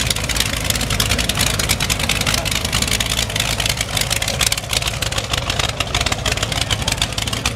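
1965 Chevy C10 rat rod's 400 small-block V8 running at low revs through open exhaust headers as the truck rolls slowly past. It gives a steady, choppy run of rapid exhaust pulses.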